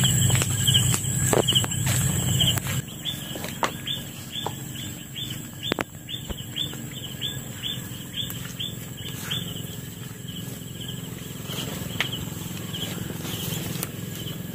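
Night-time outdoor ambience of calling animals: a steady high insect drone, with a long run of short, falling chirps repeated a few times a second through the middle. A low hum is heard in the first few seconds.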